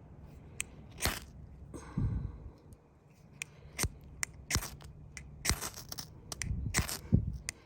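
A striker scraped again and again down a tiny ferrocerium rod to throw sparks onto fire-starter material: a string of short, sharp scrapes at irregular intervals. The tinder has not yet caught; the small rod makes striking difficult.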